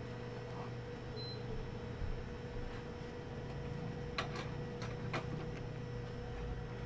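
Steady low background hum with a few faint clicks about four and five seconds in, the small sounds of a thin wire being handled over a circuit board.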